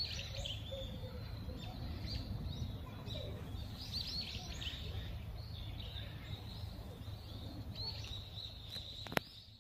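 Small birds chirping and trilling on and off over a steady low rumble of outdoor background noise. One sharp click comes near the end, then the sound fades out.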